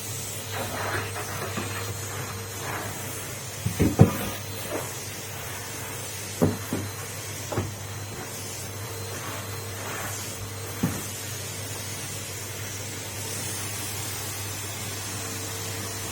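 Numatic Henry vacuum cleaner running with a steady hum, broken by a few sharp knocks, the loudest about four seconds in.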